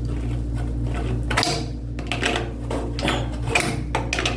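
Irregular clicks and scrapes of a plastic washing-machine nozzle being handled and twisted by hand, over a steady low hum.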